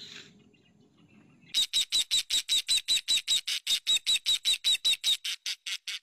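Osprey calling: a rapid, even series of high-pitched notes, about six a second, starting about a second and a half in.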